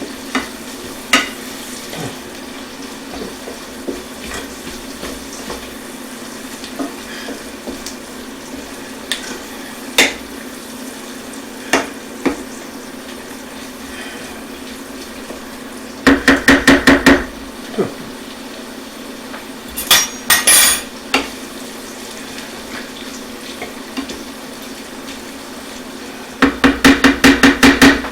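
Sausage and vegetables frying in a sauté pan while a utensil stirs them, with scattered single clicks against the pan. Three quick runs of rapid knocks against the pan, about half a dozen to ten in each, are the loudest sounds.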